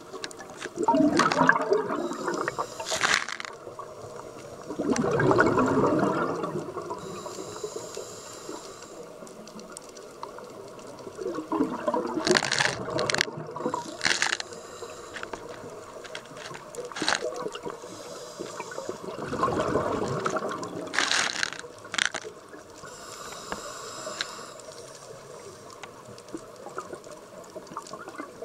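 Scuba diver breathing through a regulator underwater: four bursts of exhaled bubbles gurgle out about every seven seconds, with a softer hiss of inhalation between them.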